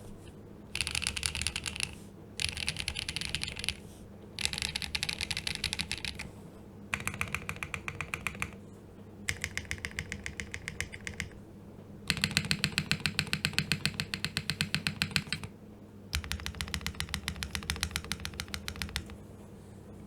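Typing on a Geonworks Frog Mini 60% custom mechanical keyboard with a polypropylene (PP) plate and Sarokeys BCP linear switches. Seven runs of rapid keystrokes come with short pauses between them, and the longest and loudest run falls a little past the middle.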